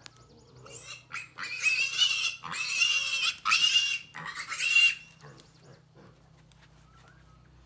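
A piglet squealing loudly while it is held up and carried by hand: four shrill screams, each under a second, running from about a second in to about five seconds in, then it falls quiet.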